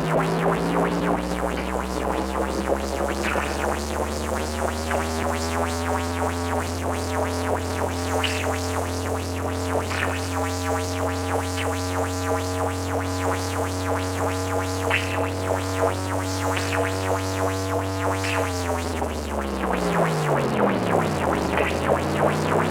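Synthesized emergency-alert (EAS) alarm sound: a low droning chord of steady tones over a fast, even pulsing beat. The pitch slides up at first, holds, then sweeps down about nineteen seconds in and rises again near the end.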